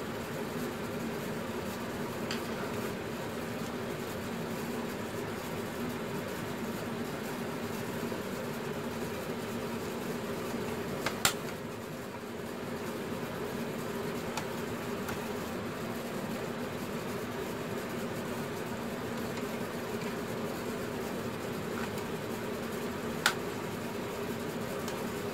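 Steady mechanical hum, with two sharp clicks, one near the middle and one near the end, as the plastic body of a model truck is handled and fitted.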